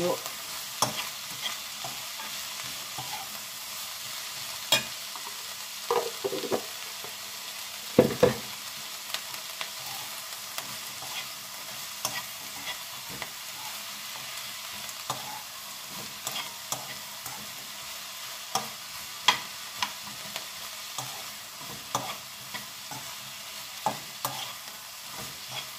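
Garlic scapes and sliced onion sizzling in a nonstick frying pan as they are stirred, with irregular clicks and scrapes of the utensil against the pan, the loudest about eight seconds in.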